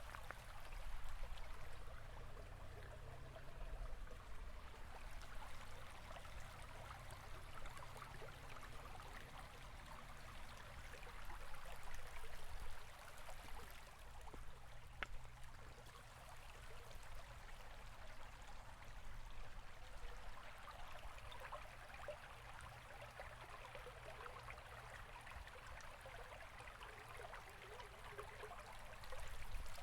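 A river or stream flowing steadily, with continuous water rushing and babbling and a low rumble underneath.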